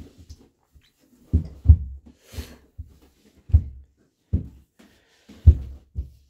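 Footsteps of a toddler and an adult going down carpeted stairs: dull, uneven thuds, about one a second.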